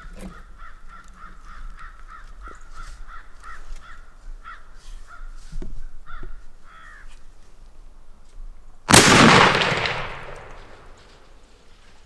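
A bird calling in a fast run of repeated calls, about three a second, then a single loud shotgun blast about nine seconds in, fired at a doe, with a long echoing tail.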